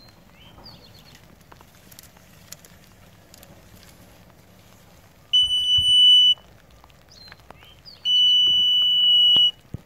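Electronic water level meter beeping as its probe, lowered on the tape down a monitoring well, touches the water: the signal that the water level has been reached. There are two steady high beeps, the first about a second long from a little past the middle, the second about a second and a half long near the end.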